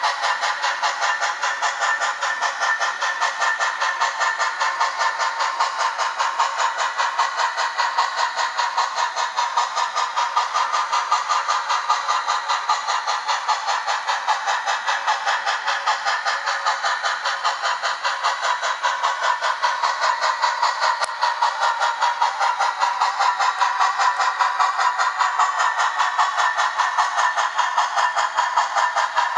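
Sound-equipped Blackstone HOn3 C-19 model steam locomotive running, its onboard speaker playing steady, rhythmic exhaust chuffing with no deep bass.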